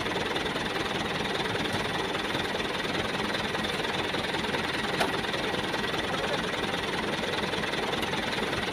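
Truck's diesel engine idling steadily, with a single sharp knock about five seconds in.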